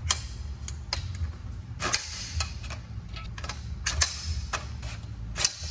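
Aluminium bimini-top frame tubes clicking and knocking together as the bows are fitted onto the side rail: a string of short, sharp clicks at uneven intervals.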